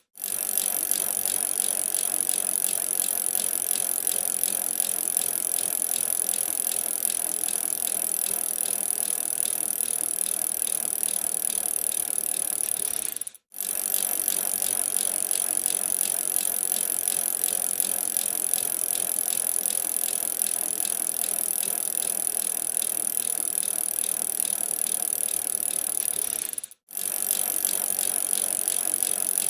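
Bicycle in motion: a steady mechanical rattling and ticking from the drivetrain, cutting out for a moment twice where the recording loops.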